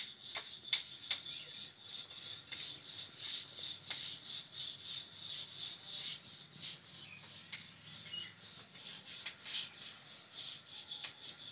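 High-pitched chirping pulsing several times a second, with a few faint clicks and rustles.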